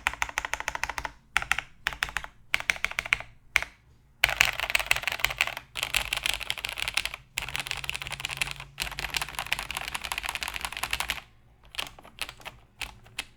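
Typing on a plateless Cherry MX5000 Ergoplus keyboard with lubed vintage Cherry MX Brown switches and Cherry doubleshot keycaps. Short bursts of keystrokes come first, then about seven seconds of fast, continuous typing from about four seconds in, thinning to a few separate key presses near the end.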